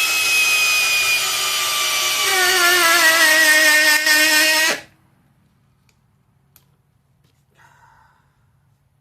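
Brushless cordless hammer drill driving a lag bolt into wood. Its motor whine slowly drops in pitch, then sags further and wavers under heavier load about two seconds in, and cuts off suddenly about halfway through as the trigger is released.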